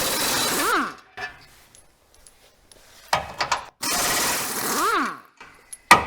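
Power wrench on a 17 mm socket running in two bursts, loosening subframe bolts, its pitch rising and then falling as each burst ends. Sharp metallic clicks come between the bursts and near the end.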